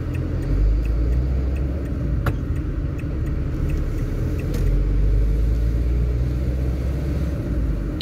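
A car driving, heard from inside the cabin: a steady low rumble of engine and road noise, with two faint clicks.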